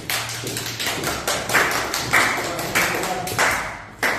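Applause: a dense patter of hand claps that cuts off abruptly near the end.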